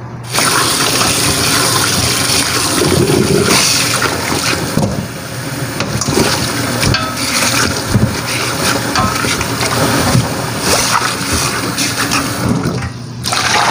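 Kitchen tap running hard into a stainless steel sink, the stream splashing over pieces of blanched duck in a pot as they are rinsed by hand. The water starts a moment after the beginning and cuts off shortly before the end.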